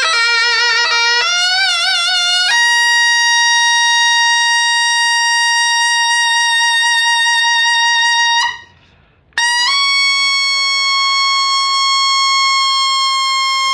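Taepyeongso, the Korean double-reed conical shawm, played solo: a few wavering notes with heavy vibrato that climb in pitch, then a long steady high note of about six seconds, a short breath, and another long high held note.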